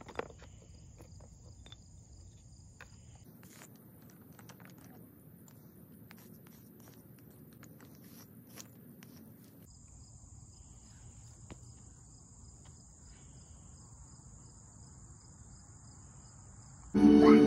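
Steady high-pitched insect trilling outdoors, with scattered faint taps and scrapes of sidewalk chalk on asphalt. Music comes in loudly right at the end.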